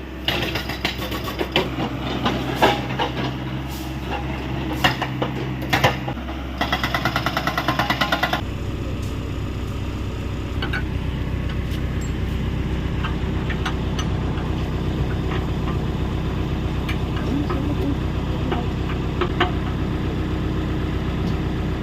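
Hyundai 85A excavator's diesel engine running steadily, with scattered sharp metal knocks early on and a burst of rapid, even hammering strokes for about two seconds, about a third of the way in, typical of a hydraulic rock breaker.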